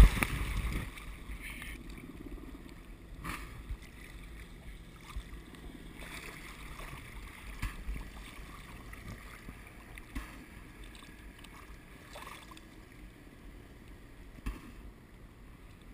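The splash of the parachute landing in the lake dies away in the first second. Then comes low water sloshing and lapping around a camera riding at the surface, with a few small knocks, and the faint drone of a small inflatable boat's outboard motor.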